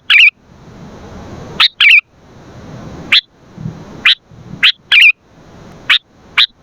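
Sooty-headed bulbul (kutilang) calling over and over: loud, sharp, short rising notes mixed with a few brief bubbly, fluttering phrases, about one call every half second to a second and a half.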